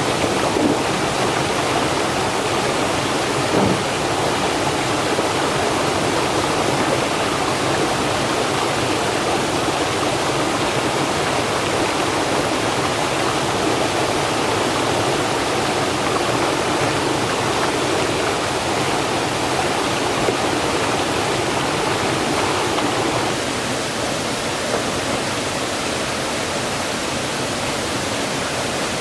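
Fast-flowing stream water rushing steadily, easing slightly about 23 seconds in.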